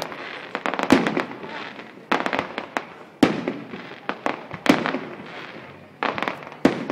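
Aerial fireworks shells bursting overhead, a sharp bang about once a second, with smaller cracks in between.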